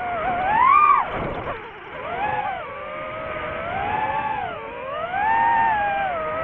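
DJI FPV quadcopter's motors and propellers whining, the pitch swooping up and down again and again as the throttle is worked. About a second in, the whine drops sharply and then climbs back.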